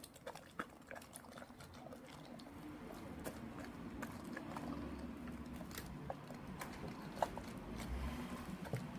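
Pets eating meat: chewing and mouth smacks heard as irregular small clicks and knocks throughout.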